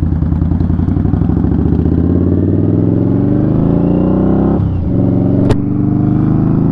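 Indian Scout Bobber Twenty's V-twin engine accelerating, its pitch climbing steadily, dropping briefly at an upshift about four and a half seconds in, then climbing again. A single sharp click comes just after the shift.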